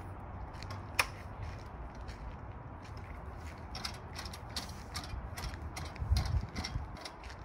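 Metal clicks and rattles from a Carefree of Colorado RV awning's arm hardware worked by hand. A sharp click comes about a second in, then a run of small ratchet-like clicks, and a heavier knock near the end.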